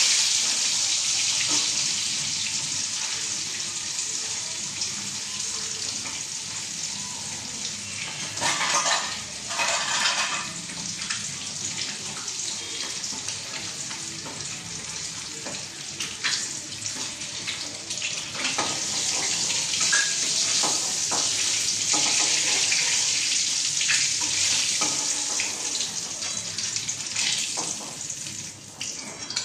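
Food frying in hot oil in a steel kadai (wok), a steady sizzle, with occasional scrapes and clinks of a metal spatula turning it.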